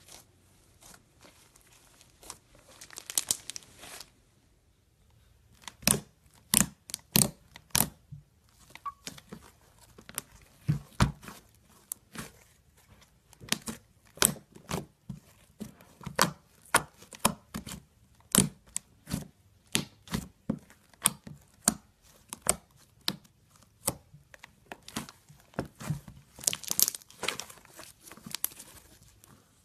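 Slime worked by hand: first a short stretch of crackly kneading of floam slime with foam beads, then a thick white slime pressed and stretched by a finger, giving sharp clicking pops about two a second.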